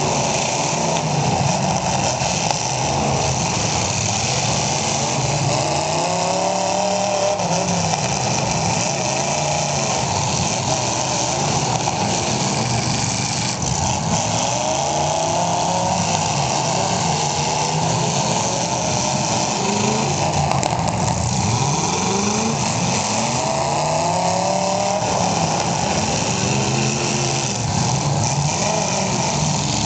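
Several demolition derby cars' engines revving up and falling back again and again, overlapping one another.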